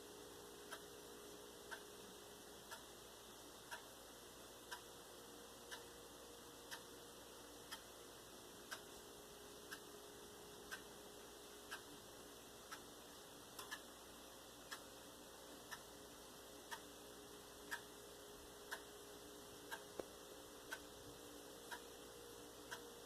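Faint, even ticking about once a second, like a clock, over a low steady hum.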